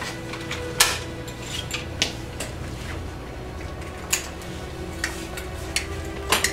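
Sharp metallic clicks and clatters, four or five of them a second or two apart, from an ambulance stretcher's frame and fittings being handled as a person is loaded onto it, over a steady low hum.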